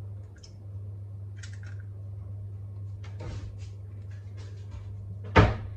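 An egg cracked open by hand and emptied into a drinking glass: faint small clicks and shell crackles over a steady low hum. About five seconds in comes one sharp knock, much louder than the rest.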